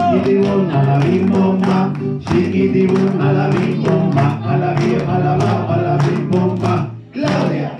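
A group singing a song together over music, with hands clapping along.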